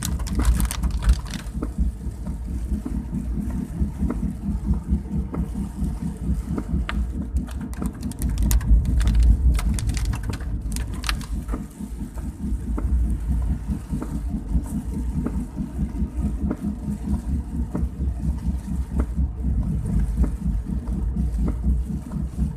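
A vehicle driving on the road: a steady low engine and road rumble that swells for a couple of seconds about a third of the way in, with scattered sharp ticks.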